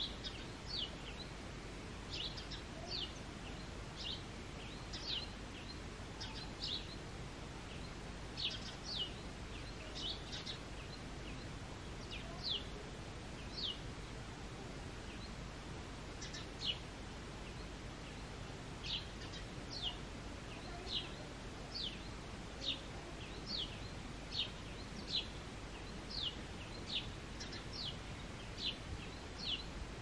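Male house sparrow giving its cheep song: short, quickly falling chirps, singly or in quick pairs, repeated about once or twice a second with a few brief pauses. A steady low background noise runs underneath.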